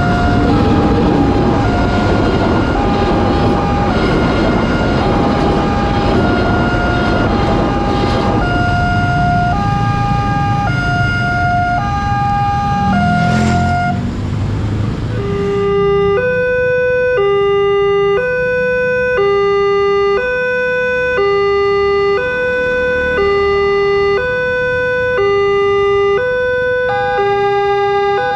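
Railway level-crossing alarm sounding its electronic two-tone warning, alternating between two pitches, over the engine noise of waiting motorcycles. About halfway through, the traffic noise drops away and a lower-pitched two-tone crossing alarm alternates more slowly.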